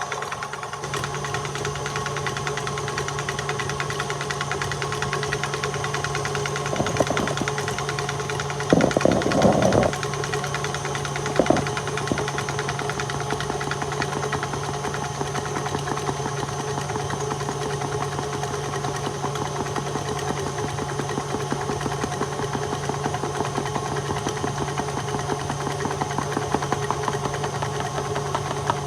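Electric mixer motor running steadily with a constant hum as the beaters whip frosting in a bowl, with a few louder clattering bursts about a third of the way in.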